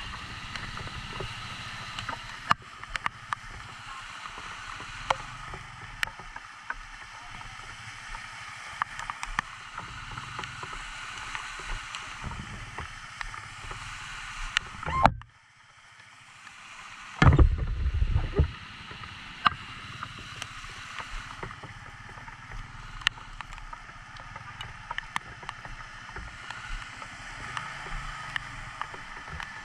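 Motorcycle riding through a flooded road in the rain: a steady rush of water washing around the tyres over the low run of the engine, with sharp ticks of raindrops hitting the camera scattered throughout. About halfway through the sound cuts out for a second or two, then comes back with a loud low rush.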